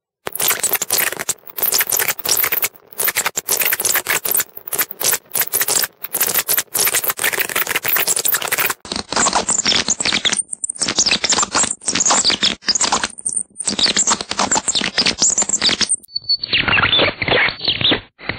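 Electrical signal of a flickering neon candle-flame bulb on 120 V DC, taken across a series resistor and fed straight into an audio input: a dense, scratchy crackle that breaks off in short gaps. It plays at normal speed, then at half speed from about nine seconds in and at quarter speed from about sixteen seconds, each step lower and duller.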